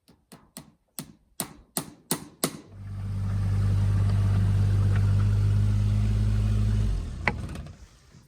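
A quick run of about eight sharp knocks, a few a second, then a motor running with a steady low hum for about four seconds before it cuts off, followed by a single click.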